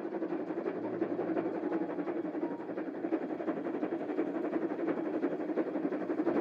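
Dubbed-in sound effect of a steam train on the move: a steady, dense running noise with no clear beat.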